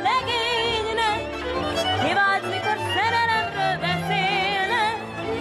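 Instrumental interlude of a Hungarian song: a violin plays the melody with wide vibrato and ornaments over the band's accompaniment.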